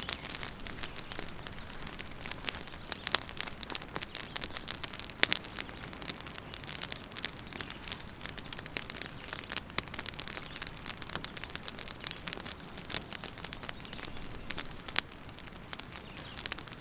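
Wood campfire crackling, with irregular sharp snaps and pops over the steady rush of a river. A bird gives a short high trill about seven seconds in.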